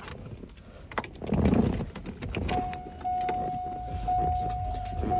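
Clicks and a jangle of keys with a low thump, then about two and a half seconds in a steady electronic warning tone starts sounding in a C5 Corvette Z06's cabin as the ignition is switched on before a start.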